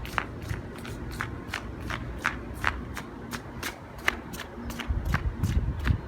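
Jogging footsteps picked up close by a clip-on lavalier microphone, an even beat of about two and a half to three steps a second. A heavier low rumble joins near the end.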